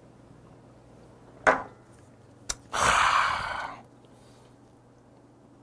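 A man downing a shot of soju: a short throaty gulp, a sharp click as the small glass is set down on the wooden table, then a breathy exhale lasting about a second.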